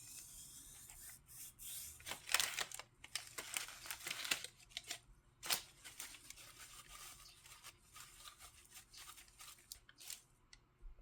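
Repeated wiping passes of a paper shop towel through the dirty cylinder, an irregular dry rubbing and crinkling with short scraping strokes, cleaning out leftover dirt and sludge.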